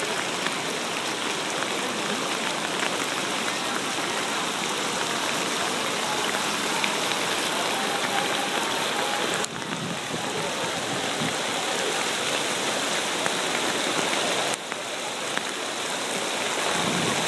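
Steady monsoon rain falling on surfaces, an even hiss that drops suddenly in level twice, about halfway through and again later.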